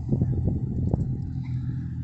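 Car engine idling with a steady low hum, and a few short clicks over it.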